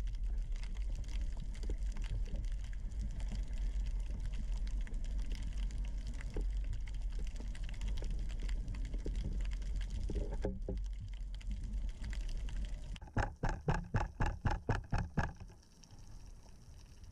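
Water sloshing and gurgling around an action-camera housing at the sea surface: a steady low rumble with scattered small clicks. About thirteen seconds in, a quick run of about a dozen knocks, roughly five a second, lasts two seconds before the sound drops to a quieter underwater hush.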